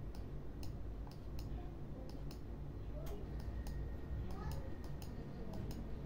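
Computer mouse clicking and scroll-wheel ticking over a steady low hum: a long run of sharp, irregular clicks, about two to three a second.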